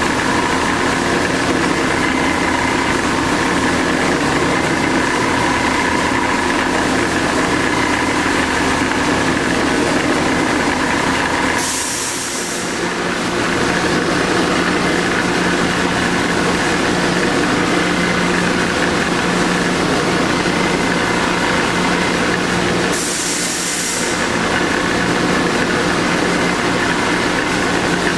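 Clausing 5902 variable-speed lathe running: a steady motor and drive hum with several held tones. Twice the hum dips for about a second under a short high hiss.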